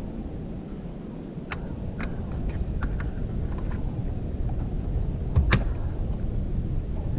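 A few light clicks, then a sharp knock about five and a half seconds in and another near the end, over a steady low rumble.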